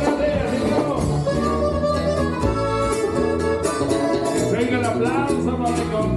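Live Latin American band music led by an accordion, with sustained bass notes underneath.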